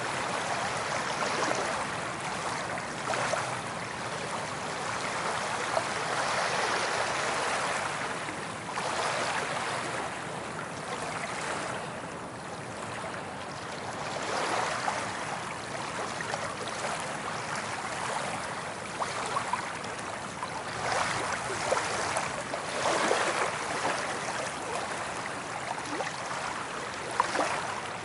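Soft ocean waves breaking and washing up a beach, a steady surf hiss that swells every few seconds as each wave rolls in, with a fine fizzing crackle at the peaks.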